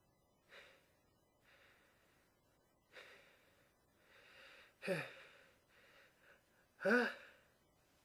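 A person's sharp, noisy in-breaths while holding back a sneeze, building to two short voiced gasps about five and seven seconds in, the second the loudest: the 'ah… ah…' of a sneeze coming on.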